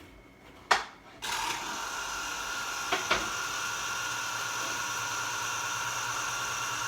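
A knock, then an electric citrus juicer's motor starts just over a second in and runs steadily with a whine while a lemon half is pressed on the reamer. Two short knocks come about three seconds in.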